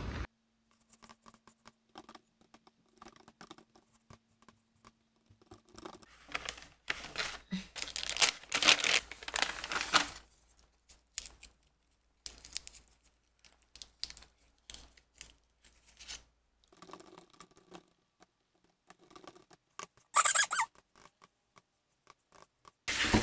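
Crinkling and tearing of a small plastic wrapper being opened by hand, densest a few seconds in. Soft key clicks of typing on a low-profile computer keyboard follow.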